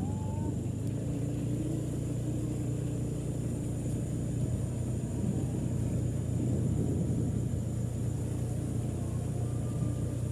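Steady low rumble, with a continuous high, thin trill of crickets above it.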